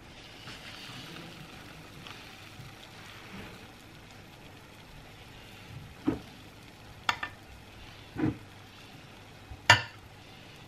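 Guava juice poured from a glass bottle into a glass with a soft, even hiss. Then a few short knocks and clinks as glasses and a glass salad bowl are set down on a wooden tray, the loudest near the end.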